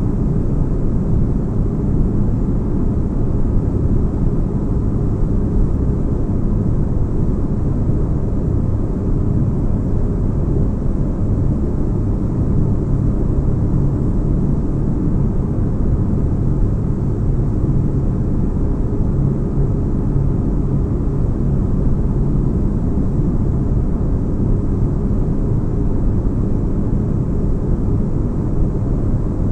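Sci-fi spaceship-interior ambience: a steady deep rumble with a low hum in it and a faint hiss above. It does not change.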